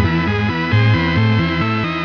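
Soundtrack music: a quick run of plucked guitar notes over a bass line, changing pitch several times a second.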